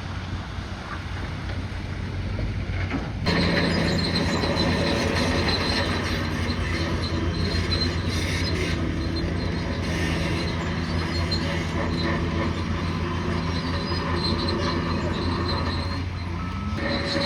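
Bulldozer at work: its diesel engine running steadily, with the steel crawler tracks squealing and clanking as it moves. The sound turns suddenly louder about three seconds in.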